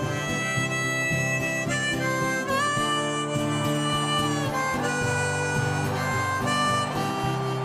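Harmonica playing held melody notes, some bent in pitch, over a strummed acoustic guitar backing track.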